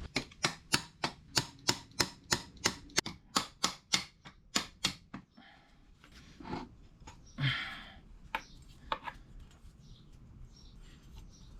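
Ratchet wrench clicking steadily, about four clicks a second, as a freshly broken-loose engine bolt is backed out; the clicking stops about halfway through, followed by a few scattered metal knocks.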